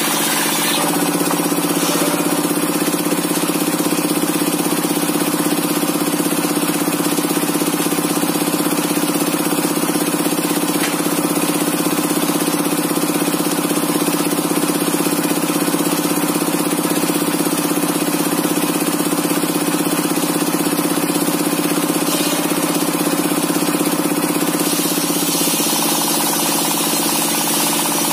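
Single-cylinder 'dompeng' diesel engine running steadily with a knocking beat, driving a table circular saw whose blade spins at speed.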